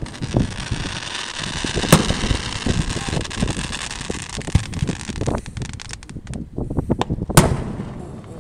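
Fireworks going off: a sharp bang about two seconds in, followed by a few seconds of crackling, then another loud bang near the end, with smaller thumps between.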